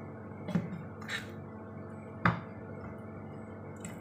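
Raw chicken pieces being placed into an aluminium pot: four short, soft knocks and squishes, the sharpest about two seconds in, over a steady low hum.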